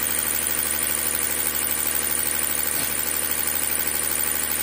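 Diesel injection pump test bench running a Weifu P7100 inline six-cylinder injection pump, a steady, fast mechanical rattle as the pump delivers fuel through its six lines into the graduated measuring tubes.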